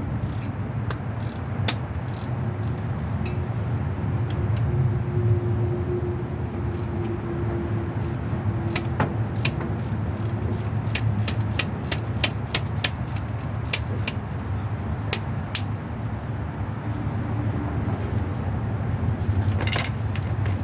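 Hand tools working the bolts of a driveshaft's center bearing: a run of sharp metallic clicks, about three a second, through the middle, over a steady low hum.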